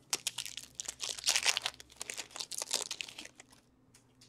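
Foil wrapper of a hockey card pack being torn open and crinkled. It makes a dense crackle that lasts about three and a half seconds, then stops.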